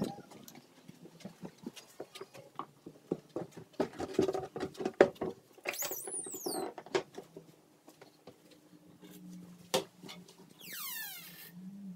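Footsteps, knocks and handling noise from someone walking through a house with a handheld camera, with two high squeaks falling in pitch, one about halfway through and one near the end, as doors are opened.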